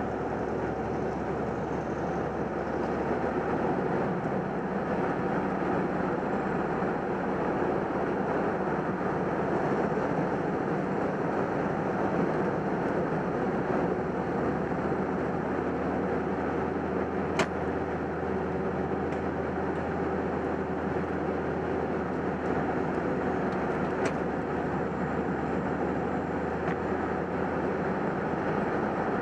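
Steady road and tyre noise of a Suburban flat-towing a Jeep Wrangler on a tow bar, heard at the rear hitch. Two short sharp clicks break in, about halfway through and again later.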